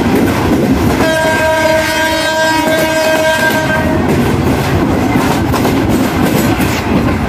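Passenger train running at speed, heard from on board, with a steady rumble and clatter of wheels on the rails. About a second in, the locomotive's horn sounds one long blast that lasts about three seconds.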